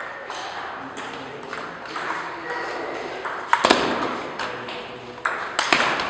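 Table tennis rally: the ball clicks back and forth off the rubber paddles and the table in quick succession, with a few sharper, louder hits about halfway through and near the end.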